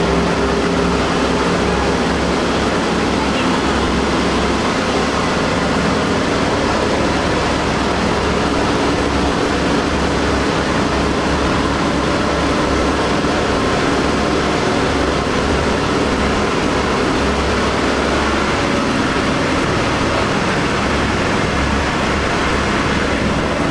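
B-17 bomber's Wright R-1820 Cyclone radial engines running, a loud steady drone with a low throbbing rumble heard from inside the fuselage.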